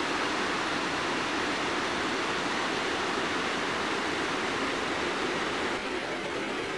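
Steady rushing of a mountain stream, an even hiss of water that eases slightly near the end.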